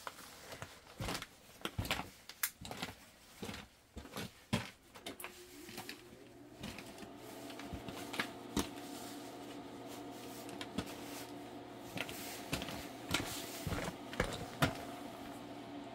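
Clicks and knocks of things being handled, then about five seconds in a motor starts and runs with a steady hum while the knocking goes on.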